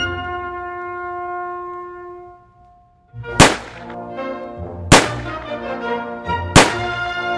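A held chord fades out, and after a brief pause brass music begins, punctuated by three loud, sharp bangs about a second and a half apart.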